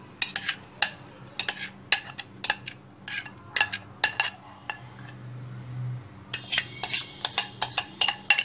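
Metal spoon clinking and scraping against the rim of a glass bowl as thick batter is scraped out: many quick, sharp clinks, with a short lull in the middle.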